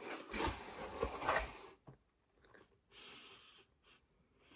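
A cardboard mailer box being opened, its lid and flaps scraping and rustling with a few sharp clicks for about a second and a half. Then short breathy sounds, a breath or sniff, about three seconds in.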